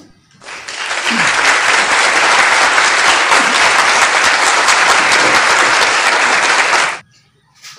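Applause, many hands clapping, starting about half a second in and cutting off abruptly about seven seconds in, a canned applause sound effect laid over a good billiards shot.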